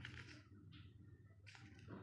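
Near silence with a few faint, brief rustles of the Kinder Joy egg's wrapper and plastic being handled.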